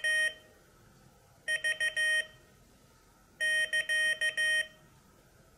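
Morserino-32 Morse trainer's speaker beeping Morse code at about 15 words per minute, in three short groups about two seconds apart. The first two groups are the letter V (dit-dit-dit-dah), which marks the start of the lesson, and a longer group of dits and dahs comes near the end.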